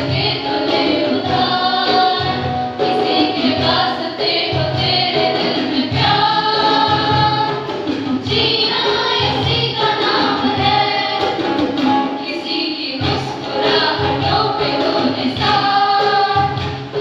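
A group of schoolgirls singing together in unison, accompanied by acoustic guitar, over a steady low beat.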